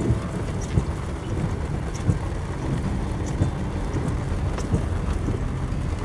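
Vehicle driving on a wet dirt road, heard from inside the cab: a steady low rumble of engine and tyres, with a light tick about every 1.3 seconds from the windshield wipers.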